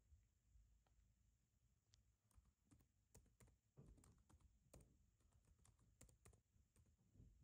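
Faint typing on a laptop keyboard: a quick, irregular run of key clicks starting about two seconds in.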